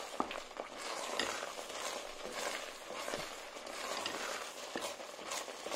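A wooden spoon stirring thick quince paste in a pot on the heat, with irregular scrapes against the pot and the paste sizzling. The paste has cooked down to a thick stage and is stirred so it does not stick to the pot.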